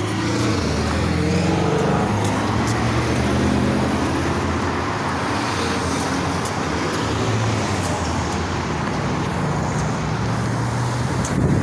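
Road traffic at an intersection: car engines running, with steady tyre and road noise.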